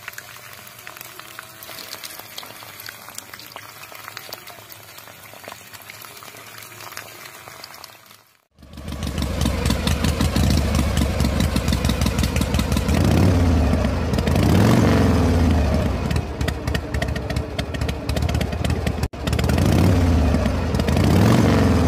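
Faint steady whirring and splashing from a miniature water pump. After a sudden cut about eight seconds in, a much louder engine sound starts with a low rumble, its pitch swelling and dropping a few times as the toy tractor churns through a muddy puddle.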